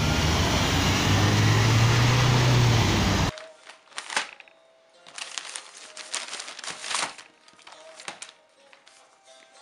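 Road traffic noise with a low engine hum that cuts off abruptly about three seconds in. It is followed by light taps, clicks and rustling over faint background music.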